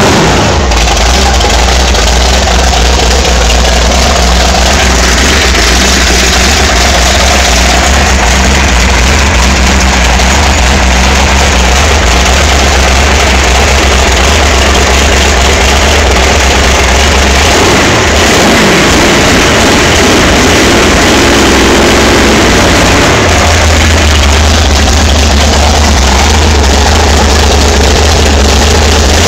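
Jet boat's 460 big-block V8, bored out to 473 cubic inches and fed by a fresh Holley 650 four-barrel carburettor, running loud and steady at idle. Roughly two-thirds of the way through it is revved up and down for several seconds, then settles back to a steady idle.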